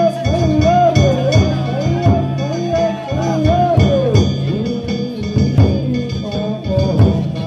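Danjiri festival music (danjiri-bayashi): steady taiko drum beats under a wavering, ornamented high melody and a sustained ringing metallic tone.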